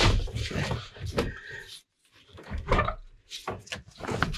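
Irregular plastic and metal knocks and rattles as the AC condenser is lifted by hand and worked free of the channels in the radiator's sides, with a short break about two seconds in.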